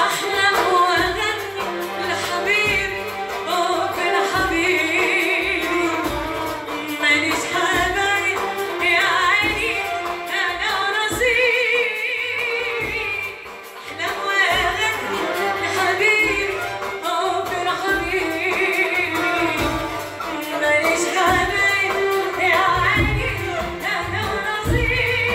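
A woman singing a live Arabic tarab song in long ornamented phrases with strong, wavering vibrato, accompanied by keyboard and a hand-held frame drum. The singing breaks off briefly about halfway through.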